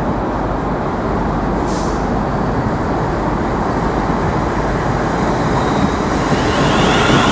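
Class 360 Desiro electric multiple unit approaching on the line: a steady running noise that slowly grows louder and brighter near the end as the train draws close.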